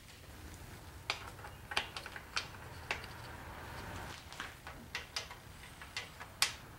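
Light metallic clicks and taps at irregular intervals, the sharpest near the end, as oiled lifters are handled and dropped into the lifter bores of a Chevy 350 small-block engine.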